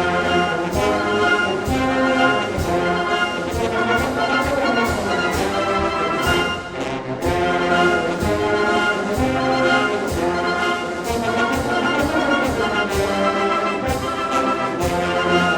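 Wind band playing a march: brass carry the tune over a steady march beat of about two drum strokes a second, with a brief drop in volume about seven seconds in.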